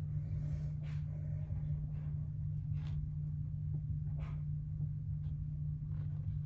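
A steady low hum throughout, with a few faint, brief rustles and scrapes from a plastic icing bag being squeezed and gingerbread pieces being handled on the table.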